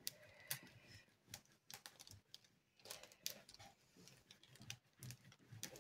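Faint, scattered crinkles and clicks of the clear plastic protective film on a diamond painting canvas as it is lifted and handled.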